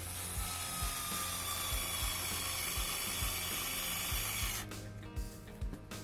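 3.6 V cordless screwdriver running with a fast ratcheting rattle from its adjustable torque clutch. Its motor tone sinks slightly, and it stops about four and a half seconds in.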